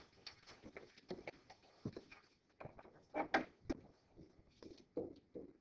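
Faint, indistinct classroom voices picked up from a distance, with scattered small knocks and clicks; the loudest is a short burst of voice a little past three seconds.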